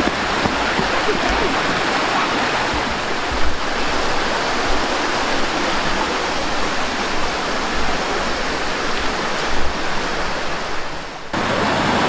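Fast-flowing rocky stream rushing and splashing over stones in small cascades: a steady, fairly loud rush of water that dips briefly near the end.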